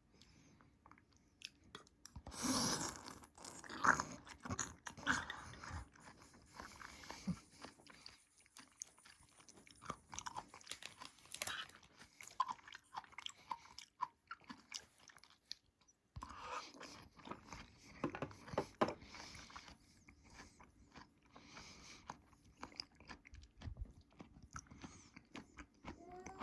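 Close-miked eating of crunchy food: irregular crunching bites and chewing, loudest a couple of seconds in and again past the middle.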